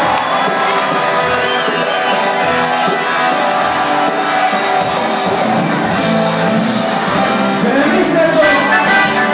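Live Greek pop band playing with a singer on vocals, the audience shouting and singing along, heard from inside the crowd in a large hall.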